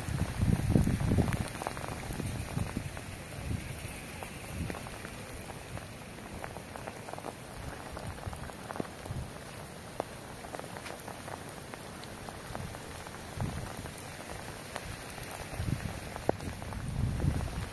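Steady rain falling on wet ground, with scattered drops ticking close by. A low rumble of wind on the microphone comes in the first second or two and again near the end.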